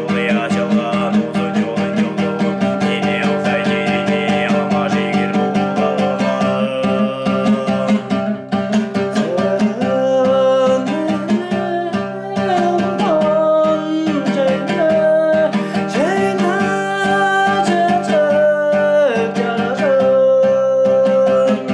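Throat singing with a plucked string accompaniment: a steady low drone sung under a whistling overtone melody that steps up and down from about ten seconds in, over an evenly strummed string instrument. The piece ends abruptly at the close.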